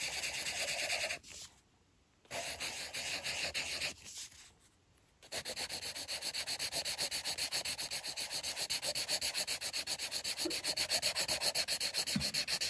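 Dixon Ticonderoga No. 2 wooden pencil scratching on paper: looping strokes broken by two short pauses, then about seven seconds of rapid, even back-and-forth shading strokes.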